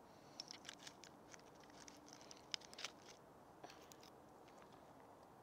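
Faint, scattered small clicks and taps of hands handling small plastic glitter jars and shaking out glitter, most of them in the first three seconds.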